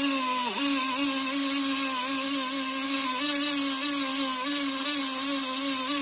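Small benchtop belt grinder running with a steady whine and hiss of the belt while a leather knife handle is sanded smooth against it. The motor's pitch dips briefly about half a second in.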